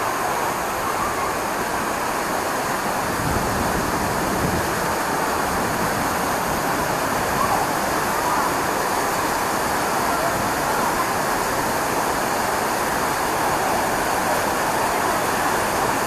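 Steady rushing of a jungle waterfall plunging into a wide pool, with faint voices of people bathing now and then.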